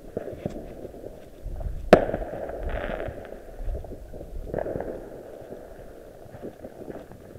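A single sharp firework bang about two seconds in, with a low rumble trailing after it, among scattered small crackles and pops.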